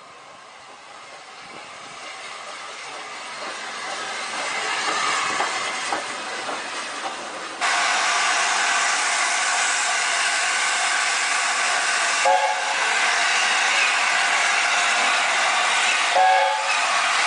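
A steam locomotive working toward the listener, growing steadily louder. Then, after an abrupt cut, LNER A4 Pacific 60007 Sir Nigel Gresley letting off a loud, steady hiss of steam as it moves slowly along the platform, with two short whistle blips about four seconds apart.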